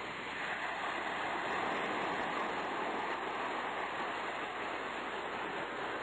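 Sea surf washing in a steady rush, swelling over the first second or two and then easing off slowly.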